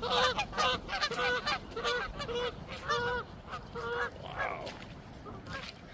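A flock of geese honking, a quick series of about eight calls, roughly two a second, that grows fainter after about four seconds.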